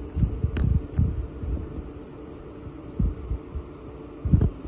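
Aquarium filter humming steadily, with irregular low thumps and a few light clicks; the loudest thump comes near the end.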